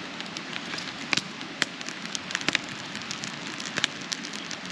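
Open campfire crackling with frequent, irregular sharp pops as paper burns in it.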